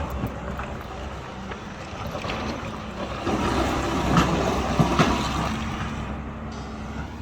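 Diesel engine of a JCB 3DX backhoe loader running with a steady low rumble, growing louder between about 3 and 5 seconds in, with a couple of brief knocks.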